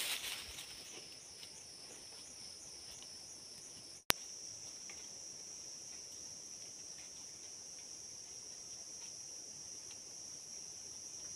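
Insect chorus: a high-pitched trill that pulses about three times a second at first. After a sudden break with a sharp click about four seconds in, it becomes a continuous, slightly louder buzz. Faint light ticks sound over it.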